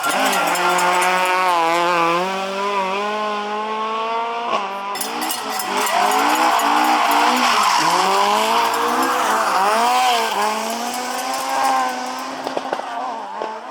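Rally car engine revving hard, its pitch climbing and dropping again and again through throttle lifts and gear changes as the car drifts, with tyres squealing loudest in the middle and a few sharp pops near the end.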